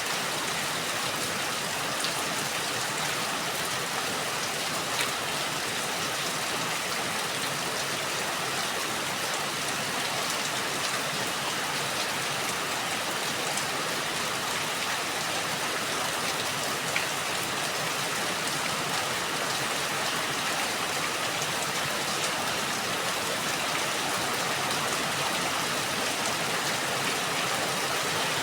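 Steady rain falling, an even hiss of drops with an occasional sharper drip or tick standing out.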